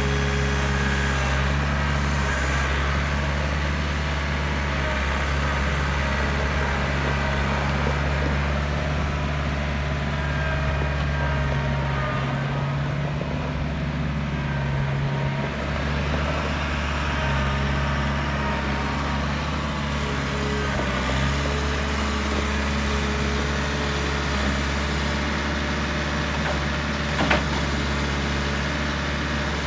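John Deere 110 tractor loader backhoe's diesel engine running steadily while the machine drives and turns. The low engine note dips briefly about halfway through, and there is a single short knock near the end.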